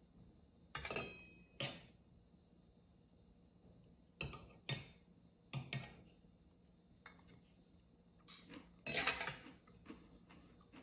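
A metal fork clinking and knocking against a glass jar and a ceramic plate as fermented red cabbage is taken out: about a dozen separate short clinks, the loudest about nine seconds in.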